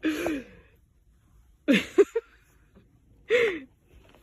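Three short, breathy vocal sounds about a second and a half apart, each sliding in pitch: the first falls, the second rises, the third rises then falls.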